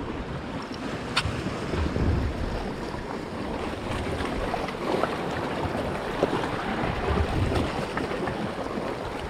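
Water sloshing against a small boat, with wind buffeting the microphone in low gusts. A single sharp click about a second in.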